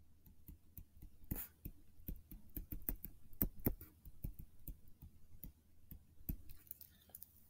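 Soft, irregular clicks and taps of handwriting being entered on a computer, several a second, stopping about a second before the end.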